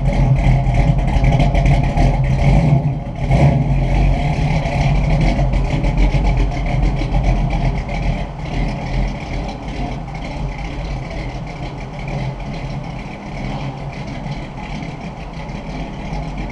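1969 Camaro SS V8 exhaust rumbling at low speed as the car pulls away, growing steadily quieter toward the end, with a short dip and surge in the engine note about three seconds in.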